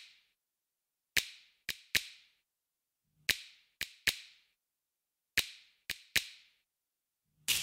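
Finger snaps in a repeating rhythm: groups of three snaps, one group about every two seconds, three groups in all.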